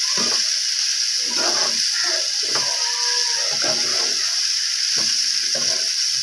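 Black chickpeas, onion and tomato sizzling in a pan while a spatula stirs them, scraping against the pan in irregular strokes.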